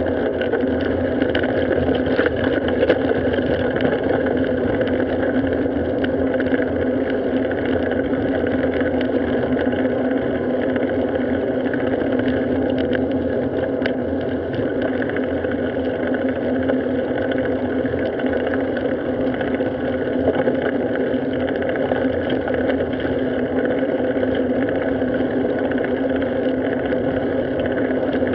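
Steady droning hum and road noise from a bicycle riding along a paved street, picked up by the bike-mounted action camera.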